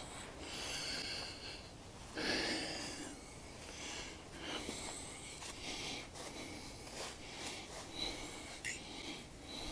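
Footsteps shuffling through thick dry fallen leaves, with soft breathing close to the microphone.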